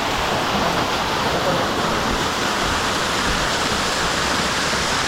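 Waterfall pouring steadily, an even, unbroken rush of water.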